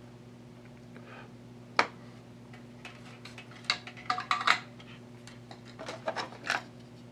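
Small metal tools clicking and tapping on a workbench: one sharp click about two seconds in, then two clusters of quick taps and clatters. A steady low hum runs underneath.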